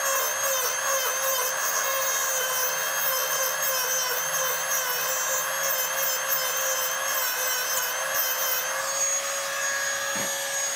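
Dremel rotary tool with a grinding wheel running at high speed, grinding paint off a truck's steel door jamb down to bare metal. Its steady high whine wavers in pitch as the wheel is pressed into the paint, then holds even near the end.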